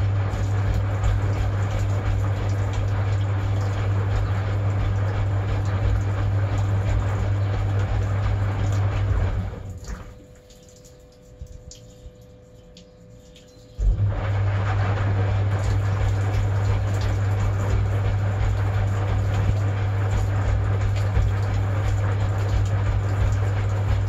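1960 Constructa K5 front-loading washing machine in its wash cycle: the drum motor hums steadily while water and suds slosh in the turning drum. The drum stops about ten seconds in and starts again abruptly some four seconds later.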